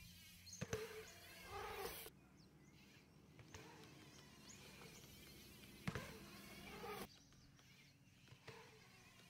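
BMX bike on a concrete skatepark bowl: a sharp double knock of the wheels landing on the concrete just under a second in, tyres rolling on the concrete, and another hard knock about six seconds in.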